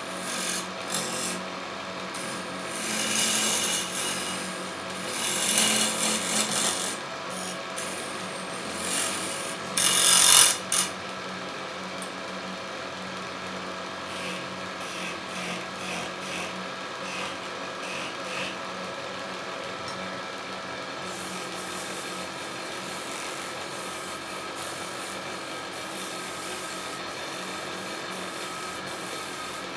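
Wood lathe running with a steady hum while a hand-held chisel cuts a spinning wooden spindle. There are loud bursts of rough cutting over the first ten seconds or so, the loudest about ten seconds in, then lighter scraping as the tool works the wood more gently.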